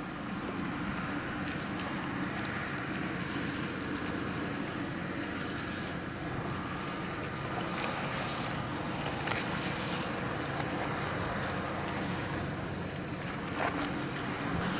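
Car ferry Ferry Tsurugi's engines running in a steady low drone as the ship leaves port, with wind on the microphone.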